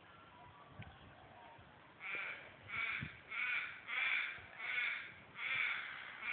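A crow cawing: a run of about seven harsh caws at an even pace of about one and a half a second, starting about two seconds in.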